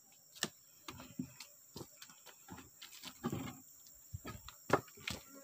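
Irregular footsteps and rustling of a person walking, with a few sharper knocks from handling the phone; the loudest knock comes near the end.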